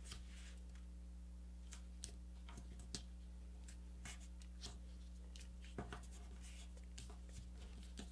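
A sheet of paper being folded and creased by hand: faint, scattered crinkles and rustles as folds are pressed down, a few of them sharper, over a steady low hum.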